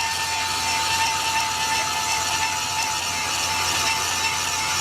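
Rail welding machinery running: a steady, dense crackling rattle with a steady high whine held over it.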